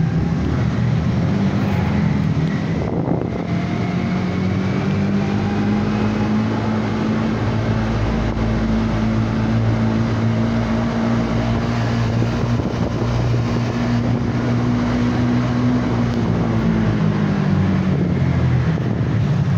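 Motorcycle engine running steadily at cruising speed, with wind noise on the microphone; the engine note falls away near the end as the bike slows.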